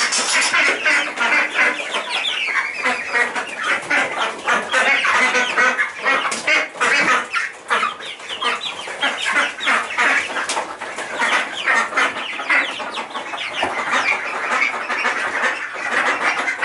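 A flock of young Rhode Island Red chickens peeping and clucking, with many short, high calls overlapping without a break.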